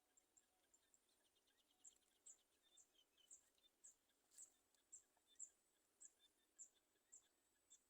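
Faint high-pitched chirping, repeating about twice a second, with a quick run of rapid ticks early on and one sharper click about halfway through.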